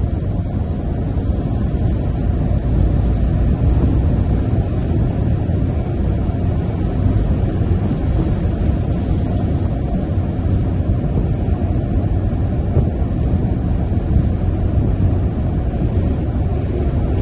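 Tipper truck's diesel engine and tyre noise as it cruises steadily along an open road: a constant low rumble with no gear changes or revving.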